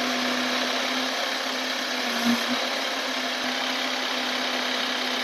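Truck-mounted aerial lift running steadily close by, its engine and hydraulics making a constant hum with a hiss as the boom raises the work basket. There is a single short knock about two seconds in.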